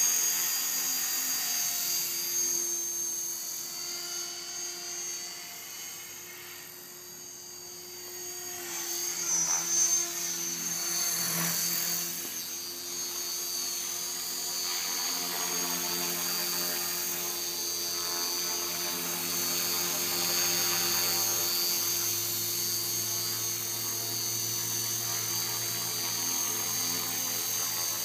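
Align T-Rex 450 Pro electric RC helicopter flying: a steady high whine from the motor and gears over the hum of the rotor. It grows fainter about six to eight seconds in and then louder again.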